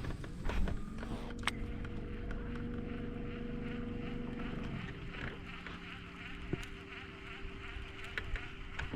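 Steady whine of a boat's electric trolling motor, its pitch dropping to a lower steady tone about five seconds in as the speed is changed, with a couple of faint clicks.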